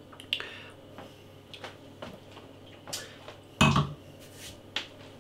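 A stemmed beer glass set down on a kitchen worktop, a single knock about three and a half seconds in, with a few small clicks before it.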